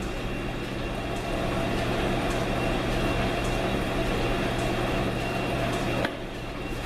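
1942 South Bend lathe running through a thread-cutting pass, the single-point tool cutting 1/2-28 threads on a steel AR15 bull barrel: a steady motor and gear hum under the cutting noise. The sound drops a little about six seconds in as the pass ends.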